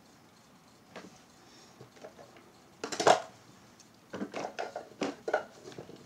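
Makeup items clattering and knocking as they are handled and moved about: a light click about a second in, a louder clatter about three seconds in, then a run of quick knocks.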